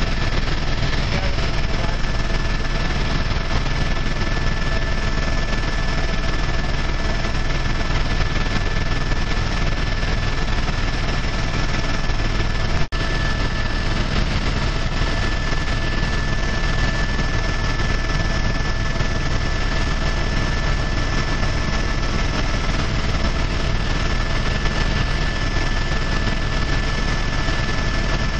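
Steady engine drone heard inside the cabin of a small aircraft in flight, with a constant high whine over it. The sound drops out for an instant about halfway through.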